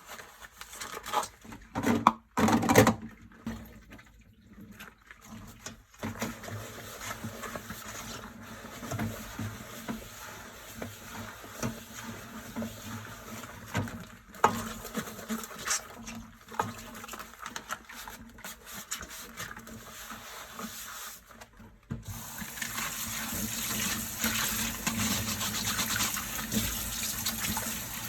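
Dishes washed by hand at a kitchen sink: a few loud knocks of dishes, then scrubbing and clinking. About 22 seconds in, the tap runs steadily with water splashing.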